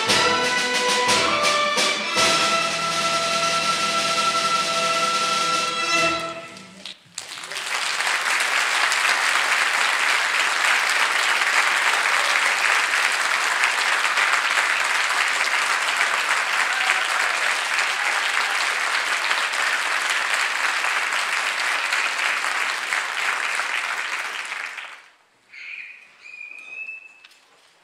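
An orchestra of bowed strings ends a piece on held final notes that stop about six and a half seconds in. An audience then applauds steadily for about seventeen seconds before it dies away.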